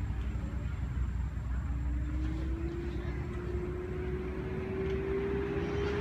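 A motor's steady hum that starts about two seconds in and slowly rises in pitch, over a low rumble.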